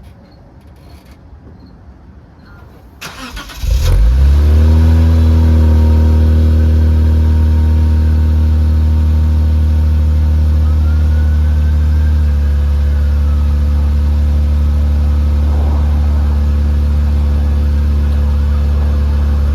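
2010 Lexus IS250's 2.5-litre V6, breathing through a newly fitted Invidia Q300 axle-back exhaust, starting up: a brief crank about three seconds in, then it catches on a raised cold-start idle that sinks and settles into a steady idle, stepping down a little more a few seconds later.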